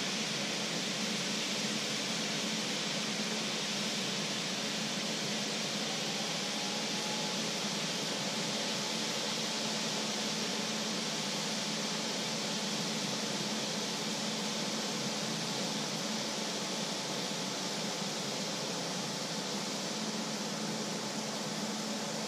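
A pot of water at a hard boil on an electric hob: a steady rushing hiss of bubbling and steam. A faint steady whine comes in about seven seconds in.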